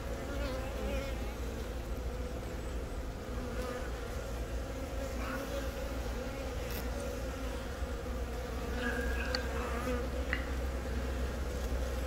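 Honeybee colony buzzing steadily on an open comb frame, the dense hum of many bees.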